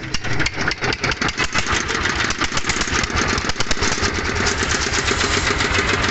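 Single-cylinder Chinese diesel engine running with a regular knocking beat. The beats come faster over the first two seconds or so, then settle into a steady run.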